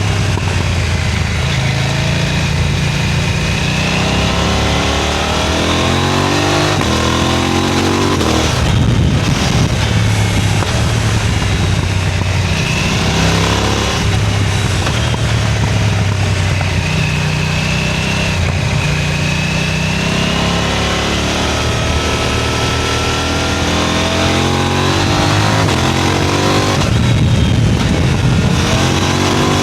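KTM 990 Duke's twin-cylinder engine ridden at a fast pace, the revs climbing and dropping back again and again under hard acceleration, with a loud exhaust note throughout.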